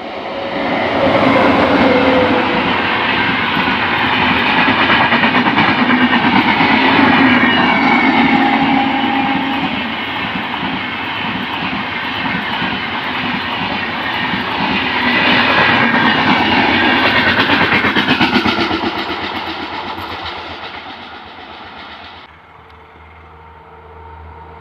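Express train behind a WAP-7 electric locomotive passing close at speed: a loud, steady rush of wheels clattering over the rail joints as the coaches go by, swelling and easing as they pass. The train fades away near the end, and the sound then cuts to a fainter, distant train noise.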